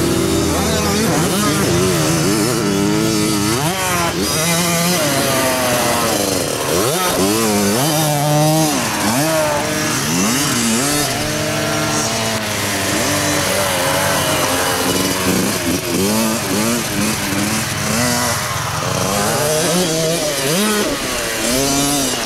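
Small two-stroke youth KTM dirt bikes running on a motocross track, their high buzzing engines revving up and dropping back again and again through gear changes and jumps, with more than one bike heard at once.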